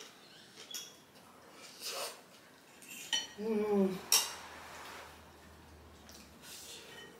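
Eating utensils clinking and knocking against a bowl or plate, a few separate strikes with the loudest about four seconds in and ringing briefly. A short hummed vocal sound comes just before it.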